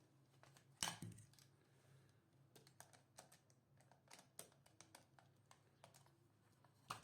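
Faint, scattered small clicks and taps of hands handling wires and panel parts, one sharper click about a second in, over a low steady hum.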